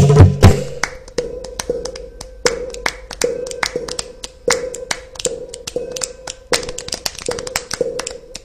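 A low drum beat stops about half a second in. Then come sharp taps, roughly one and a half a second, each with a short ringing note, with lighter clicks between them.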